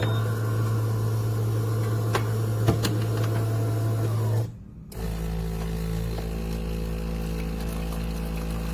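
Automatic espresso machine running: a steady motor hum that drops out briefly about halfway through, then a second steady hum with a different pitch.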